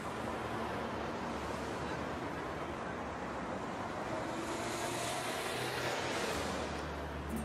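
Road noise from a car driving along a city street: a steady hiss of tyres and wind with a low engine hum, swelling for a couple of seconds past the middle.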